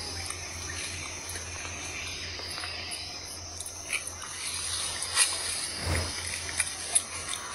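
Insects chirping steadily, with a few short clicks and a low thump about six seconds in.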